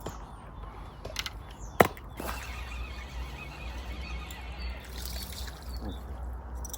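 Water trickling and splashing, with one sharp click a little under two seconds in.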